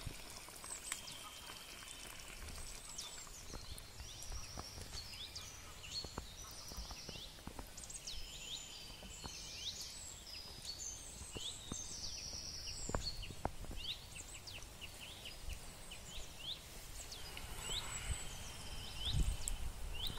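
Songbirds chirping and singing, with many short high calls and quick trills overlapping. A few soft knocks come near the end.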